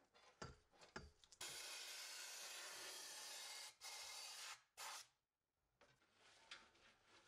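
Air-fed underbody gun spraying Dinitrol ML cavity wax through a cavity lance inside a chassis cross member: a steady hiss for about two seconds, then two shorter bursts as the trigger is squeezed and let go. Before the spraying, light scrapes and clicks as the lance is fed into the hole.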